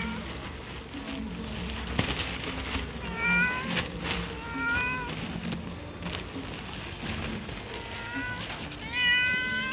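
Siamese cat meowing up at a person, four short rising-and-falling meows; the last, near the end, is the loudest.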